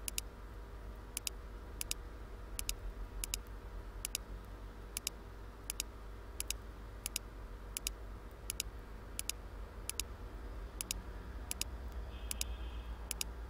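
Computer mouse button clicked over and over at a steady pace, about one click every 0.7 s. Each click is a quick double tick of press and release, and each one places the next vertex of a line being drawn. A steady low electrical hum runs underneath.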